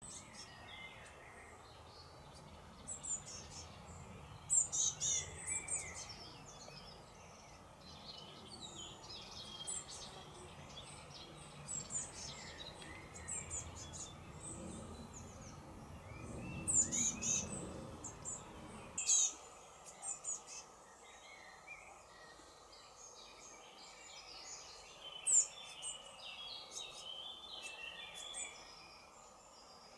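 Blue tits, an adult and its nearly fledged young at the nest box, calling in short, high-pitched chirps and twitters that come in scattered bursts.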